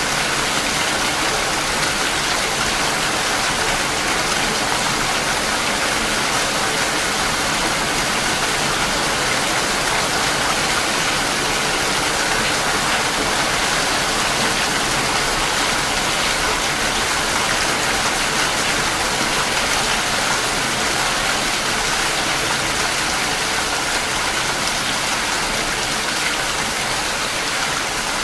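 Heavy rain falling, a steady even hiss with no let-up.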